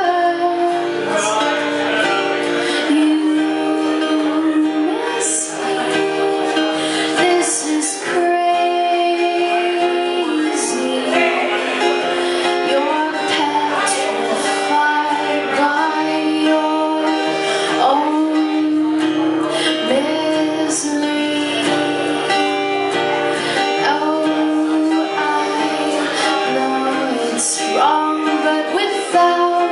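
A woman singing live while playing guitar, long held notes that often slide up into pitch, over steadily strummed guitar.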